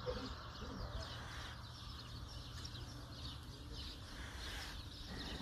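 Faint small-bird chirps, many short calls repeated throughout, over a low steady rumble.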